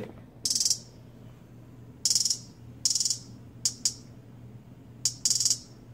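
Trap hi-hat samples from Native Instruments Maschine 2 playing back on speakers: about seven bright, hissing hits in an uneven rhythm. Some ring for a fraction of a second and some come in quick pairs, over a low steady hum.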